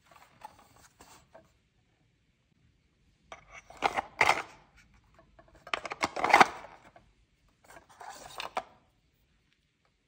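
Plastic rubbing, scraping and clicking as the doors and pull-out drawer of a miniature plastic toy fridge are handled, in four short bursts with the loudest about six seconds in.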